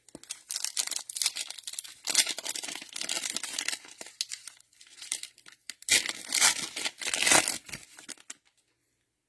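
Cellophane wrapper of a trading card pack being torn open and crinkled, in two spells of rustling: a long one near the start and a shorter one about six seconds in.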